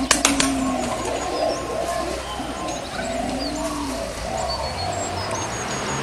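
Several birds calling: a low call that rises and falls, heard twice, over many short high chirps and whistles, with a few sharp clicks near the start.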